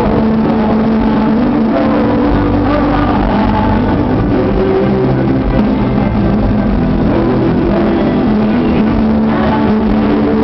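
Live Christian rock band playing loudly, with sustained held notes over a dense wash of sound, heard with the echo of a large arena.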